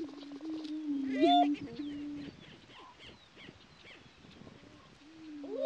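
Male greater prairie-chickens booming in courtship display: low, steady hooting moans, one running through the first two seconds and another starting near the end. A loud, rising whooping cackle comes a little over a second in, with scattered higher chirps between.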